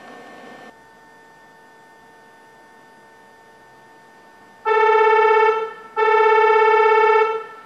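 Horn of an approaching KTR001-series Tango Explorer diesel train, sounded as two long blasts of one steady pitch, each over a second, with a short break between, in the second half. A faint steady hum lies under the first half.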